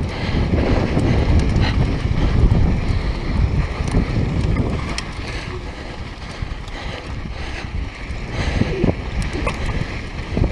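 Wind buffeting the camera microphone and the rumble of a downhill mountain bike rolling fast over a dirt trail, with scattered sharp clicks and knocks from the bike rattling over bumps.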